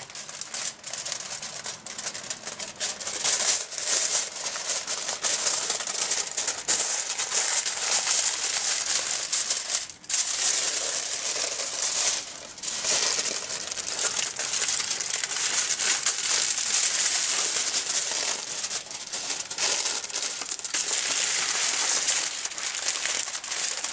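Aluminium foil crinkling and rustling continuously under the hands as it is lifted and pressed to roll up a meatloaf, with brief lulls about ten and twelve seconds in.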